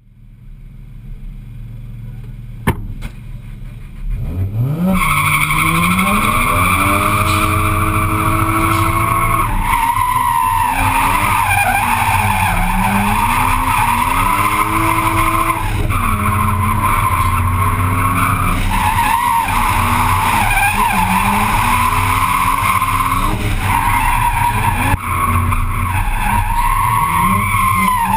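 Toyota Soarer drift car engine revving hard, its pitch rising and falling again and again as the car slides through corners, with the tyres squealing almost without a break. The first few seconds are quieter, with a sharp click about three seconds in, before the engine revs steeply up.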